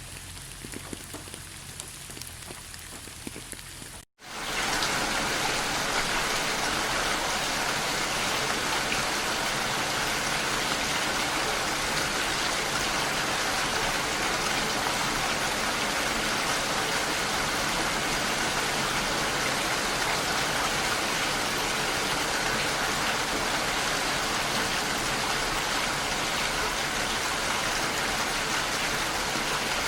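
Rain falling: light at first, with scattered separate drops, then after a brief dropout about four seconds in, a louder, steady, dense rainfall hiss.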